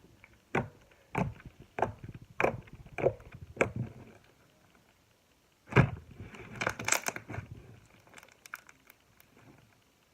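Slime being squeezed and poked: six short squelches about half a second apart, then a louder squelch followed by a second of crackling pops and a few scattered clicks.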